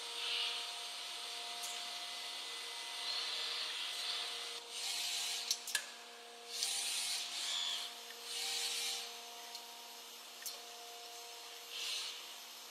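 Brother BV7-870 robot loading system and CNC machine at work: a steady machine hum with several held tones, broken by short hissing bursts every second or two and two sharp clicks near the middle.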